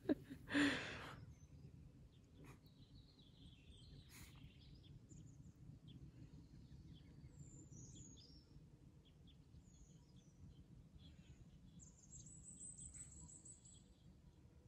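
Quiet outdoor background with a low steady hum and faint bird chirps, including a held high note near the end. There is a short, louder noise just under a second in.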